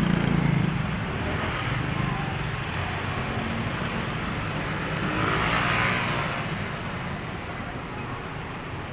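Street traffic: a motor vehicle engine running close by at first and fading after about a second, over a steady wash of road noise, with a brief swell of noise about five seconds in.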